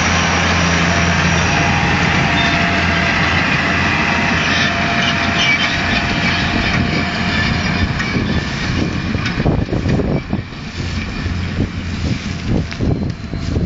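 Claas Ares 814 tractor's diesel engine running steadily as it pulls a Claas Variant 180 RotoCut round baler past, fading as it moves away. From about eight seconds in, gusts of wind rumble on the microphone.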